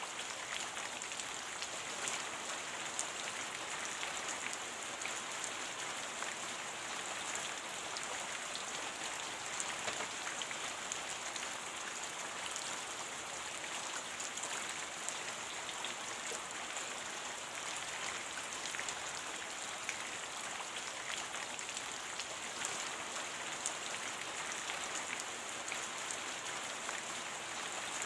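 Steady rain, an even hiss dotted with many small ticks of individual drops, holding at the same level throughout.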